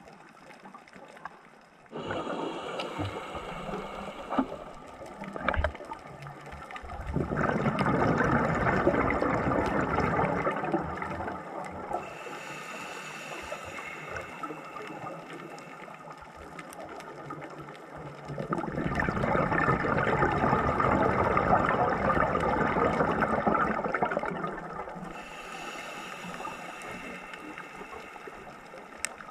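Scuba diver breathing through a regulator underwater: a quieter hissing inhale with a faint whistle, then a long, loud burble of exhaled bubbles, twice in a slow cycle.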